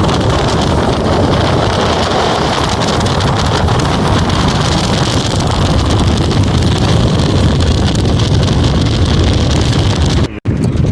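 Loud steady rushing noise of wind buffeting the microphone, cut off abruptly near the end.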